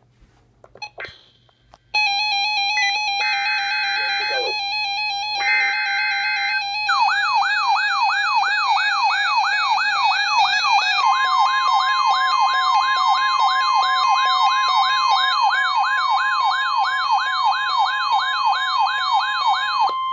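Electronic emergency-alert tones: a layered stack of steady alarm tones with two short buzzy bursts, then from about 7 s a siren sweep rising over and over, about two and a half times a second. About halfway through, a steady single-pitch alert tone joins in. Everything stops together near the end.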